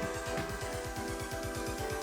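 Electronic background music with sustained synth notes over a fast, steady low beat.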